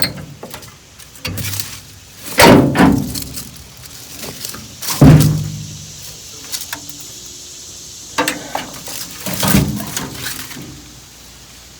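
Three loud bangs a few seconds apart, each ringing out briefly, with smaller clunks and rattles between them.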